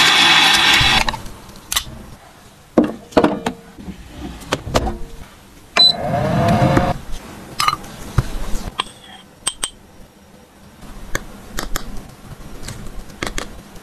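Tap water running over a plastic makeup compact cuts off about a second in. It is followed by a run of sharp clicks, taps and scrapes from handling the compact and its packaging, with one longer scraping sound about six seconds in. Near the end a metal spatula taps and scrapes crumbled pressed powder in a metal pan.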